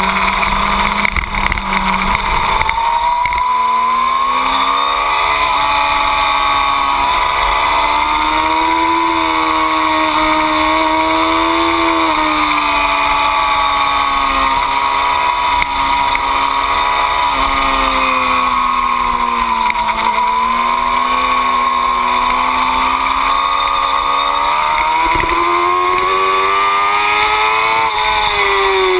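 2008 Yamaha R6's inline-four engine running hard on a race track, with wind rushing over the microphone. The engine pitch rises and falls as the bike accelerates and slows, with a sudden jump in pitch near the end.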